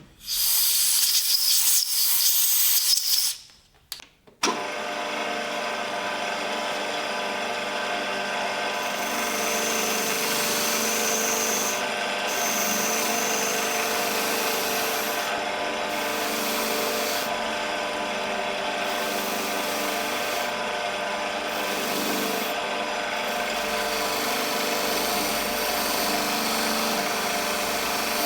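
An electric power tool running steadily with a rough rubbing sound as it works on metal. A louder hissing burst plays for the first three seconds, stops briefly about four seconds in, and then the tool runs on evenly.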